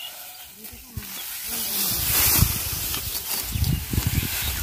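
Dry cut rice straw rustling and crackling as a sheaf is gathered and hoisted, with a low rumble through the second half and faint voices early on.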